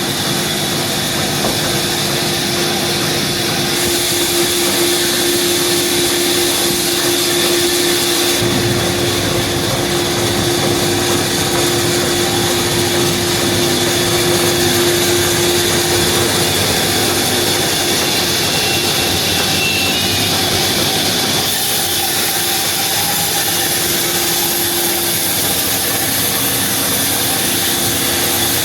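Sawmill machinery running: a loud, continuous mechanical noise with a steady hum through the first half, its character shifting abruptly a few times.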